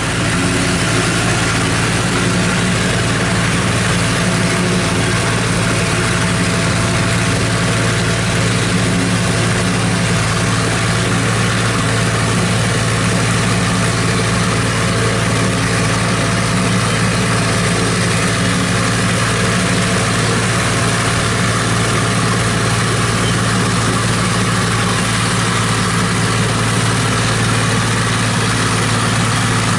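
New Idea 705 Uni System power unit running steadily under load while its Uni Chopper forage harvester cuts and chops standing corn for silage: a constant low engine drone with an even rushing noise over it, unchanging.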